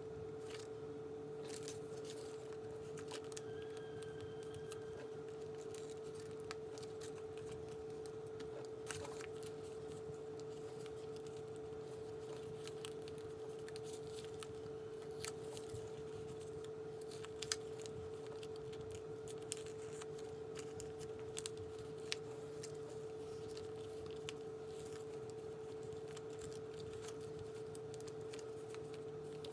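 Small scattered clicks and crinkles of adhesive vinyl being weeded by hand, the little cut pieces picked off the backing sheet, over a steady electrical hum. A few louder clicks fall in the middle of the stretch.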